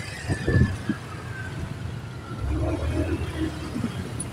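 Road traffic and a vehicle engine running with road noise while moving slowly through traffic. There are a few short knocks about half a second in, and the engine rumble grows louder about halfway through.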